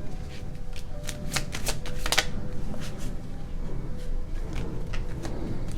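Tarot cards being shuffled by hand: a run of irregular clicks and snaps, with a quick cluster of sharper ones about two seconds in.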